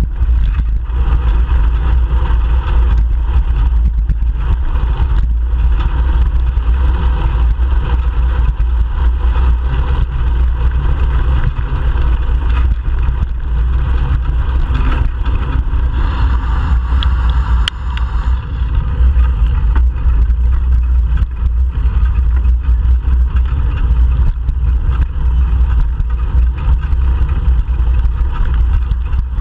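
Steady loud rush of riding a bicycle through city traffic, picked up by a bike-mounted GoPro Hero 3 Black: low wind and road noise with car engines running alongside.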